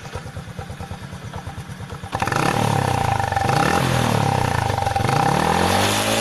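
Honda Supra motorcycle's single-cylinder engine running through a fitted bus-style 'Jetbus' exhaust. It idles with an even low pulsing, then about two seconds in it gets louder as the throttle is opened, and the engine pitch rises and falls twice with a popping 'blebep' burble.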